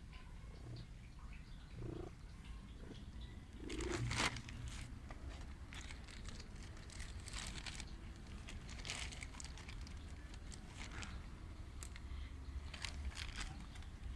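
Stray cat purring steadily and low, with a short, loud burst of noise about four seconds in and several brief rustling noises after it.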